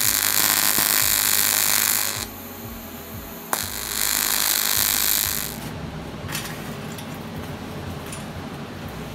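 TIG welding arc on cast aluminium, a loud steady hissing buzz. It stops about two seconds in, starts again after a sharp click about a second and a half later, and stops again about five seconds in.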